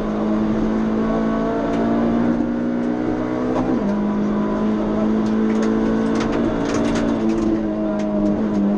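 Suzuki Swift PS16 rally car's 1.6-litre four-cylinder engine heard from inside the cabin, running hard at fairly steady revs. Its pitch drops slightly about four seconds in and again near the end.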